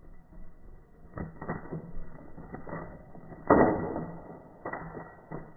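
Rattan bird-trap cage knocking and creaking as a wild bulbul lands on it and sets it off: a string of dull knocks, the loudest about three and a half seconds in.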